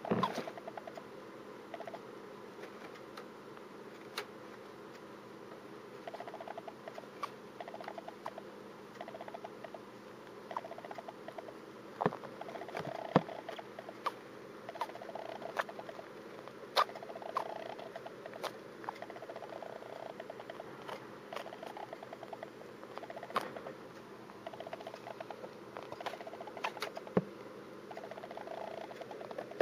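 Djungarian hamster with a cold sneezing: short, sharp little 'kyu' and 'pu' sneezes at irregular intervals, with soft rapid pattering between them.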